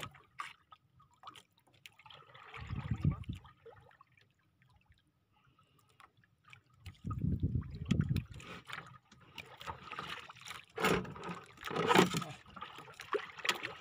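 Water lapping and trickling against the hull of a small outrigger fishing boat in uneven surges, with scattered knocks and rustles as a fishing line is hauled in by hand; the knocks are loudest near the end.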